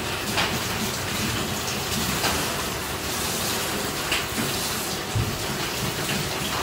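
Heavy rain falling outside, a steady rushing hiss, with a few faint ticks about every two seconds.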